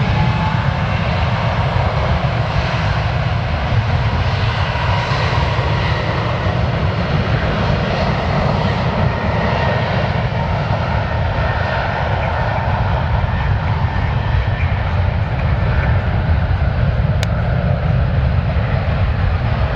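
Boeing 777's twin turbofan engines at takeoff power: a loud, steady, deep rumble with a faint whine above it.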